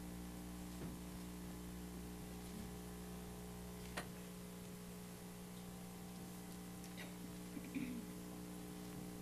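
Faint, steady electrical mains hum with a single sharp click about four seconds in.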